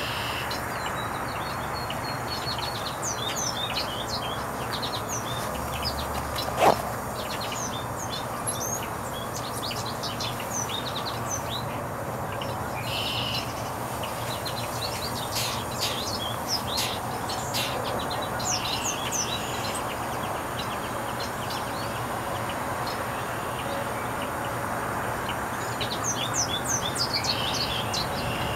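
European goldfinches twittering, quick runs of short high chirps that come in clusters, busiest near the end, over a steady low background rumble. A single sharp click about seven seconds in is the loudest sound.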